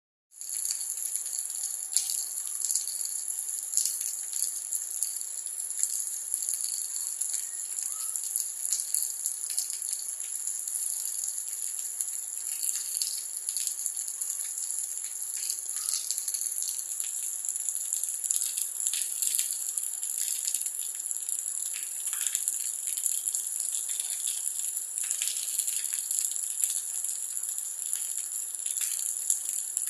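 Rain: a steady high hiss with many separate drops ticking and splashing.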